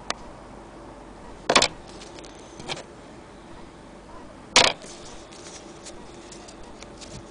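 Short, sharp handling knocks and clicks, four in all: a small click at the start, loud knocks about one and a half and four and a half seconds in, and a softer one between them.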